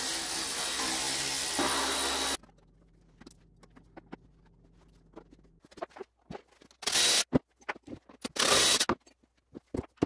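A cordless drill/driver whirs steadily for about two seconds as it backs screws out of a small engine's sheet-metal cooling shrouds, then stops abruptly. After that come quieter workshop handling noises: scattered light clicks and two short, harsh bursts of tool and metal noise.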